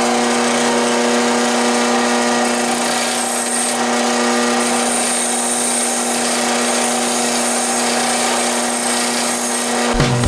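Electric drill spinning a wire brush wheel used to clean rust from a steel bayonet, running at a steady speed with an even motor whine.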